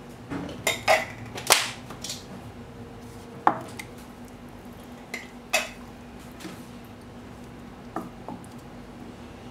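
Wooden spatula knocking against a stainless steel saucepan while stirring thick curry sauce: a cluster of sharp knocks in the first two seconds, then a few scattered ones.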